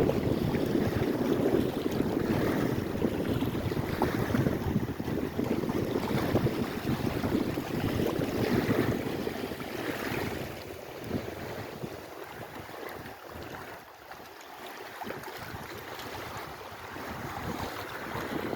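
Lake Erie waves washing in over and over, with wind buffeting the microphone in a heavy low rumble. The wind eases for several seconds past the middle, then builds again near the end.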